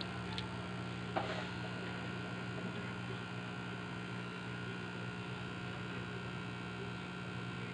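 Steady electrical mains hum with a thin, high, constant whine above it, and one light click about a second in.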